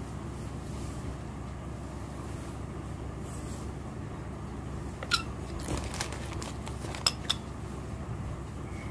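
Hand-held pearl setting machine clicking as it presses pearl studs into lace: a few sharp clicks in the second half, over a steady background hum.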